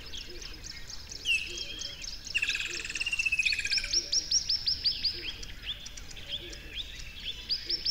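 Songbirds chirping and singing: quick series of short, high, downward-sweeping notes, with a lower buzzy trill about two and a half seconds in.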